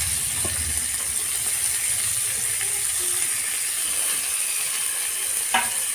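Chopped onions sizzling steadily in hot oil in a steel kadai, just added. A single knock near the end.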